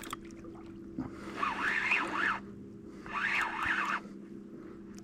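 Fishing reel whirring in two bursts of about a second each, its pitch wavering up and down, as line is worked against a big fish on the line.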